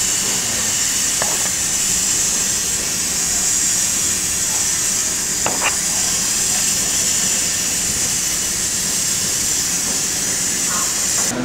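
Marinated steaks sizzling on a hot ribbed griddle pan: a steady high hiss, with a few faint clicks of metal tongs handling the meat.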